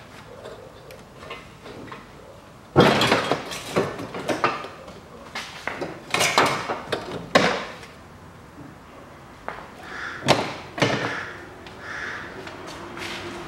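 Irregular loud metal clanks and knocks as a 2007 Mazda 6's engine subframe is worked loose for lowering. They come in a dense cluster starting about three seconds in and again around ten seconds.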